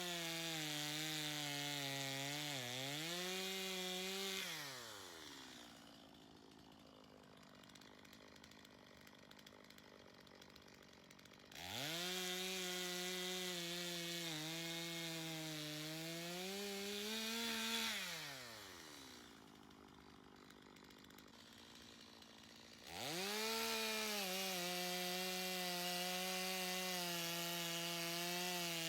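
Chainsaw cutting a log at high revs, its pitch wavering and sagging under load. The throttle is released twice, about 5 and 18 seconds in, dropping to a quiet idle for a few seconds before it revs back up into the cut.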